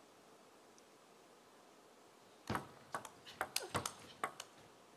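Table tennis ball and rackets: after a quiet pause, the serve lands about halfway in, then a rally as a rapid string of sharp clicks, ball striking rubber and bouncing on the table, about ten in two seconds.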